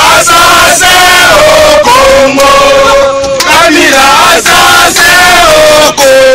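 A crowd of men chanting loudly together in long drawn-out notes, inside a packed train carriage.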